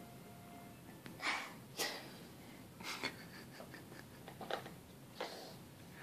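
A toddler's short breaths and snorts, about six huffs at irregular intervals, into a plastic bowl held over her face.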